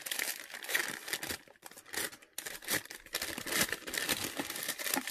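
A striped paper bag crinkling and rustling as hands open and unwrap it. There is a brief lull about a second and a half in.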